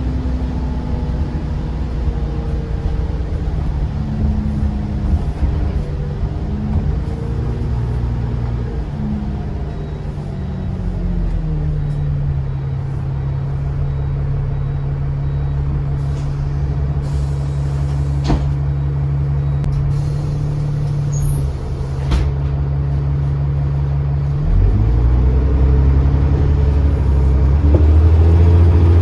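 A double-decker bus's diesel engine heard from on board: it runs down and settles to a steady idle for about thirteen seconds, with a couple of sharp clicks, then speeds up again and grows louder as the bus pulls away near the end.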